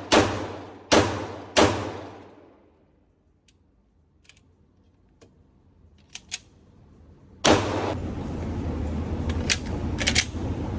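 Airsoft Canik TTI Combat pistol firing three quick shots, then a few seconds of light clicking and handling. A steady rushing noise then returns abruptly, followed by two or three more shots near the end.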